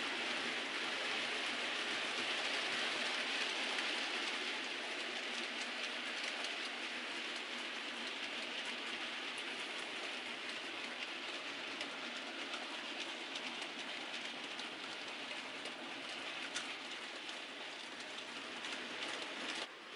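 Model railway diesel locomotive hauling a train of goods wagons over the layout: a steady hiss of wheels and motor running on the track that slowly fades as the train moves away, with faint scattered clicks from the wheels crossing rail joints and pointwork.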